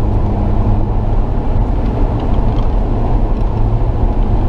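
Rally car's engine running steadily at speed with tyre and road noise, heard from inside the cabin.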